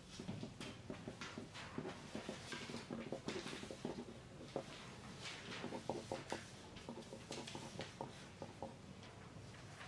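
Exam-room ambience: pencils scratching on paper, with a steady irregular run of small scratches and light taps as test-takers write.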